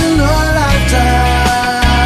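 A pop ballad recording: a singer's voice carries the melody and holds a long note in the second half, over the band's backing with a steady low bass.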